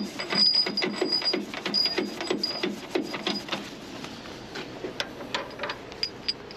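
Hand ratchet wrench clicking quickly, about five clicks a second, as a large nut is run down on the threaded rod of a tow truck's underlift crossbar at a truck's front towing pins. The clicking stops about three and a half seconds in, followed by a few separate metal clicks and knocks.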